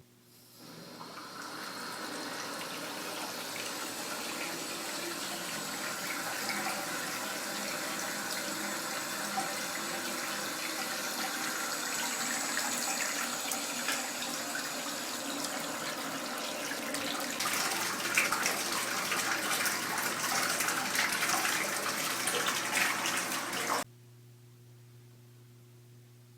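Water running from a faucet into a concrete bathtub: a steady rushing splash that turns louder and more spattery in the last several seconds, then cuts off suddenly.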